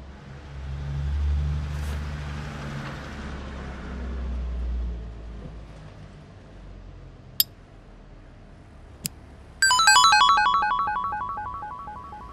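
Cartoon sound effects and synthesized music: a low whooshing rumble for the first few seconds, two sharp clicks, then a sudden burst of rapid twinkling chime notes that fades away.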